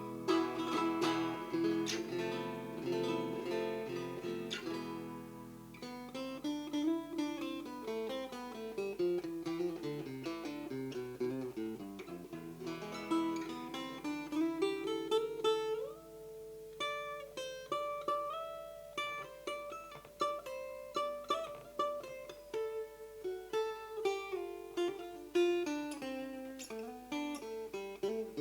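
Gérôme parlor acoustic guitar from the Mirecourt workshops being played. It starts with strummed chords, and about six seconds in turns to single-note runs and melody lines.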